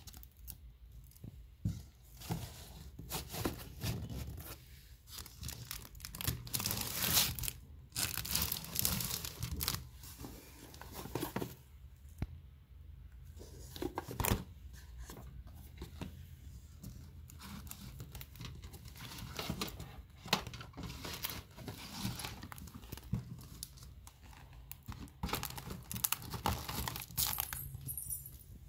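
Cardboard boxes and paper craft supplies rustling and scraping as a hand rummages through them, in irregular bursts of papery noise.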